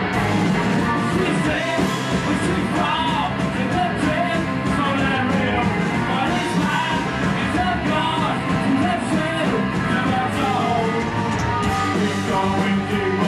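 Live punk rock band playing at full volume: electric guitars and drums, with a lead vocal singing over them.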